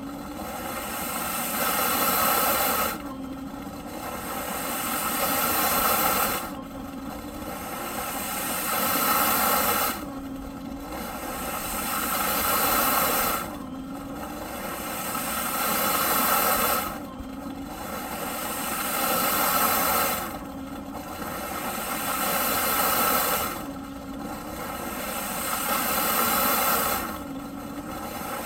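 Eureka PowerSpeed upright vacuum cleaner running. Its noise swells over about three seconds and then drops suddenly, again and again in an even cycle about every three and a half seconds.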